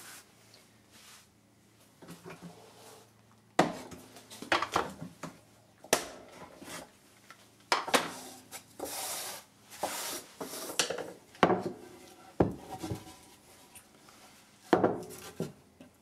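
Hand handling on a workbench: clamps clatter and a Tasmanian oak board and scrap wood block are knocked, shifted and set down, about half a dozen sharp knocks with a stretch of rubbing near the middle. The first few seconds are quiet.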